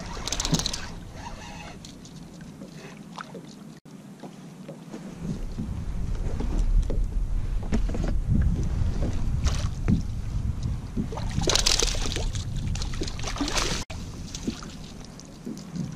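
Water splashing and lapping around a kayak, with wind rumbling on the microphone. Louder hissing splashes come about half a second in and again for a couple of seconds near the end, and the sound breaks off abruptly twice.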